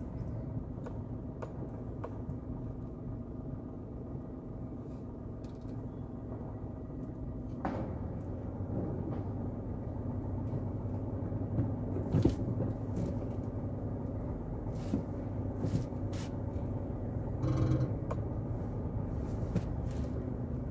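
Steady low rumble of a slow-moving vehicle carrying the recorder, broken by scattered short sharp cracks and bangs, most of them in the second half, with a short crackling burst near the end.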